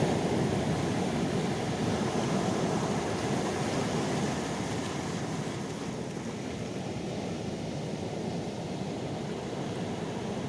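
Calm sea waves washing in, a steady low rush that eases off slightly after about four seconds.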